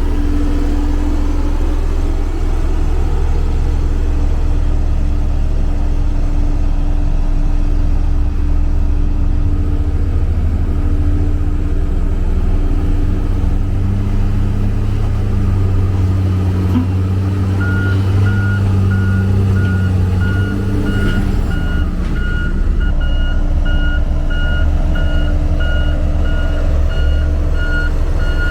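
Diesel engine of a heavy road-building machine, a motor grader or road roller, running steadily with a low drone that grows heavier through the middle stretch. A little over halfway in, a reversing alarm starts beeping at a steady pace as the machine backs up.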